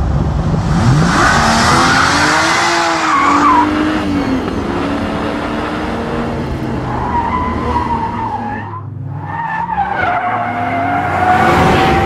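BMW 1 Series M Coupé's twin-turbo straight-six revving hard while the car drifts, tyres squealing and skidding. The engine note rises and falls throughout, with a short lull about nine seconds in before it picks up again.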